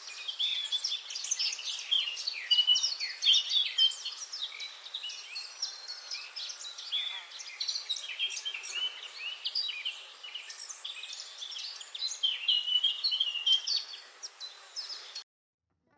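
Several birds chirping and singing at once, a dense run of short overlapping calls, stopping abruptly about a second before the end.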